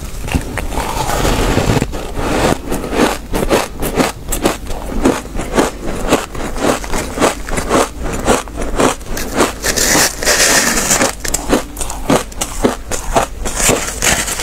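Packed shaved ice being chewed: a fast run of crisp, squeaky crunches, several a second. Around ten seconds in, fingers dig and scrape into the shaved ice in a plastic tub.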